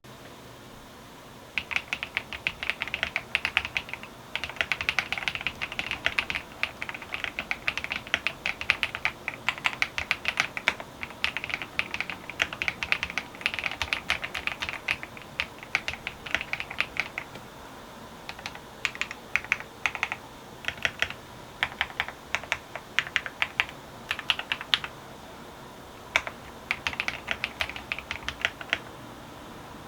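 Typing on a Valkyrie VK87 Merlin tenkeyless mechanical keyboard: runs of quick, crisp keystroke clicks, starting about a second and a half in and broken by brief pauses.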